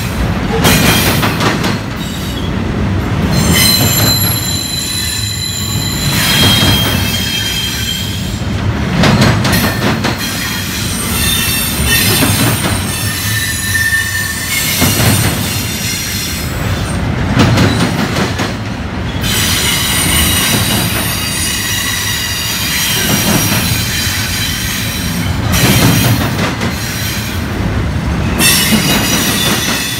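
Double-stack intermodal well cars rolling past: steel wheels squealing on the rails in high tones that come and go, over a steady rumble, with a clatter of wheels every few seconds.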